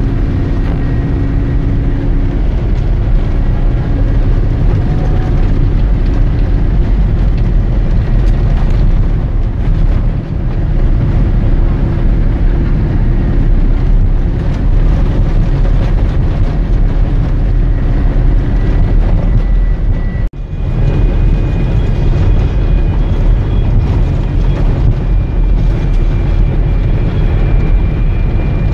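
Tour vehicle driving fast on a gravel road: a loud, steady rush of wind buffeting the microphone over the engine drone and tyre rumble. There is a brief break about twenty seconds in, after which the steady tones shift.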